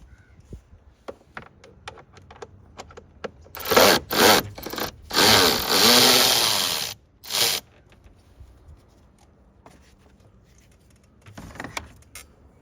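A power tool running in several short bursts and one longer run of about two seconds, backing out the 8 mm bolts on the air filter box cover. Light clicks of handling come before and after.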